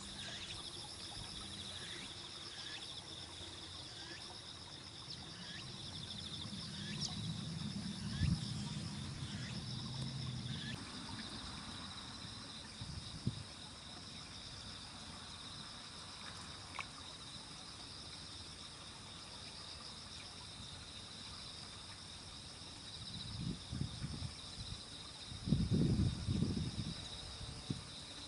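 Crickets and other autumn insects chirring steadily in a high, finely pulsing chorus. A few low thumps come near the end.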